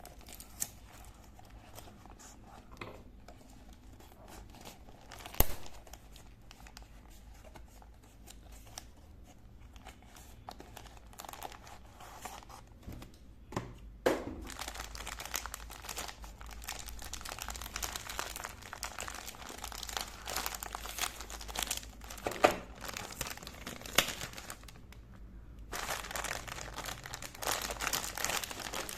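Packaging crinkling as it is handled and unwrapped, sparse at first and busier from about halfway, with a few sharp knocks.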